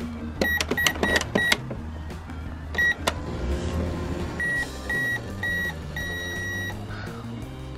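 Toy microwave beeping as its buttons are pressed: four quick electronic beeps, a single beep about three seconds in, then three short beeps and a longer one near the end. A low steady hum runs underneath.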